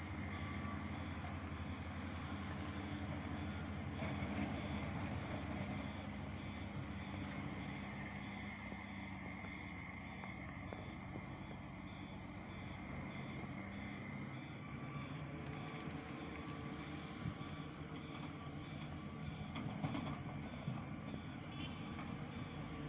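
Diesel engines of heavy earthmoving machinery running steadily, with a reversing alarm beeping near the start.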